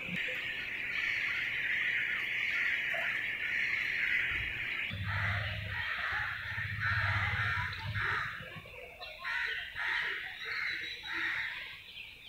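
A steady high hiss, then a sudden change about five seconds in to a run of short, harsh bird calls, about two a second, over a low rumble.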